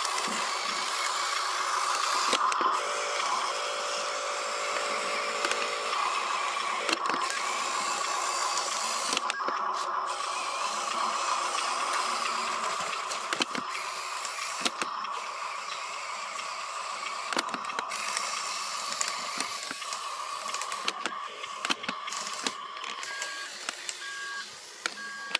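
Electric motor and gears of a Huina radio-controlled construction truck whining steadily at one pitch, with small clicks. A second, lower whine joins for about three seconds near the start.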